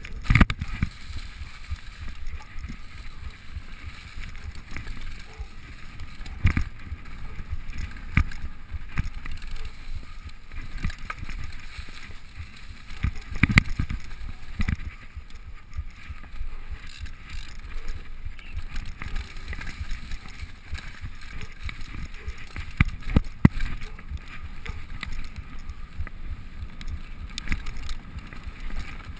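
Mountain bike descending a dirt trail covered in dry leaves, heard from a camera on the rider: a steady rumble of tyres and wind on the microphone, with frequent knocks and rattles of the bike over bumps.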